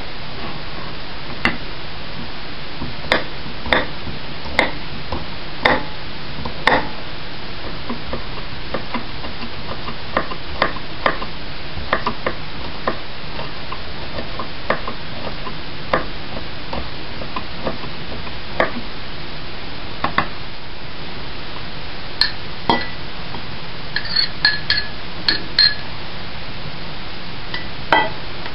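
Kitchen knife tapping and chopping diced onion on a wooden cutting board: irregular single knocks over a steady hiss. Near the end comes a run of ringing clinks, metal on ceramic or glass.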